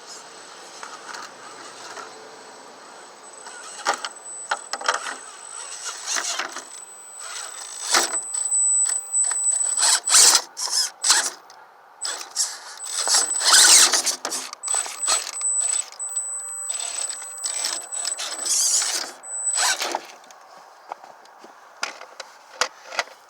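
A radio-controlled rock crawler's electric motor and geared drivetrain running in repeated short bursts, each with a high-pitched whine, loudest in the middle of the stretch and dying away near the end.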